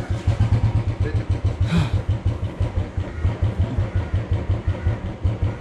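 Motorcycle engine idling, a steady low thump at about five beats a second.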